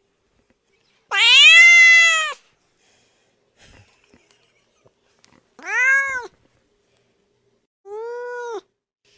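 Domestic cat meowing three times: a long, loud meow about a second in, a shorter one around six seconds, and a quieter one near the end, each rising and then falling in pitch.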